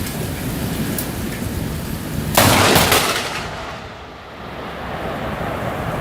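Heavy rain hissing steadily, broken about two and a half seconds in by a loud, sudden crack of thunder that dies away over about a second.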